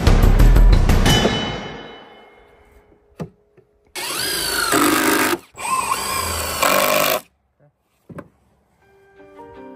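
Handheld power tool running in two bursts of about a second and a half each, its whine bending up and down in pitch, after background music fades out; music comes back in near the end.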